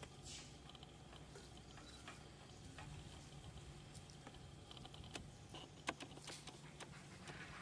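Near silence with a few faint, sharp clicks and ticks scattered through it.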